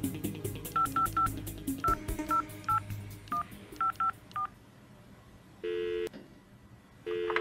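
Mobile phone keypad tones as a number is dialled, about ten short beeps in quick irregular groups, followed by the ringing tone of the call going through, heard twice.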